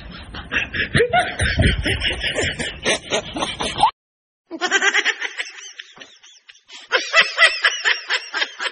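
Snickering laughter in quick repeated pulses. It cuts off suddenly about four seconds in, then starts again after half a second of silence.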